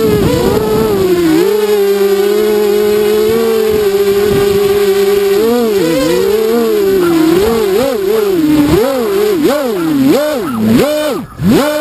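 Brushless motors and propellers of a ZMR 250 quadcopter (DYS BE1806 2300KV motors, Gemfan 5040 props) whining. The pitch holds steady for a few seconds, then swings up and down faster and faster with the throttle, and drops off briefly near the end.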